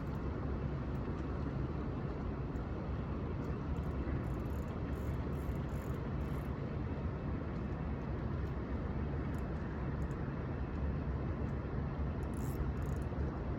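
Steady low rumbling outdoor noise with a few faint ticks.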